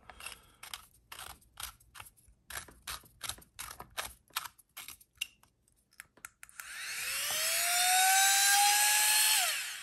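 A run of small clicks from handling the Flextail Zero Pump, then its electric air-pump motor starts with a rising whine, runs steadily for about three seconds and cuts off suddenly.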